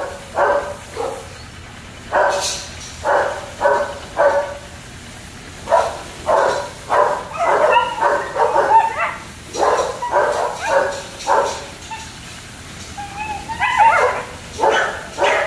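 A litter of German shepherd puppies yapping, short high barks in quick runs with short pauses between. Near the end a wavering, drawn-out whine joins the yaps.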